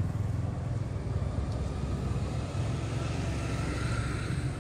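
Small motorbike engine running steadily while riding, a low, even throb.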